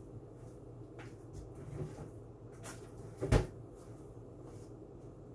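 Kitchen cupboard door shut with a single thump about three seconds in, after a couple of light clicks and knocks.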